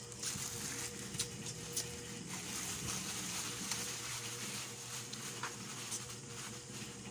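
Sounds of people eating: a few short, sharp clicks over steady background noise with a faint hum.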